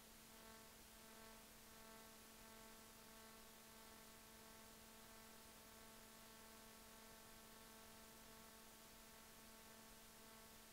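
Near silence: a faint, steady hum with several overtones over a low hiss.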